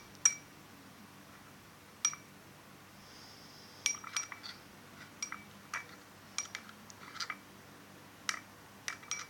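A stirrer clinking irregularly against a container while slime ingredients are mixed: scattered sharp taps with a short ring, sparse at first and more frequent in the second half.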